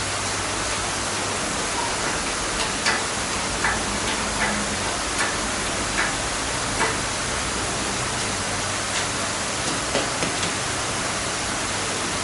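Steady hiss with a low hum, over which light clicks and knocks come every second or so as a shop engine hoist is worked to lift the engine out.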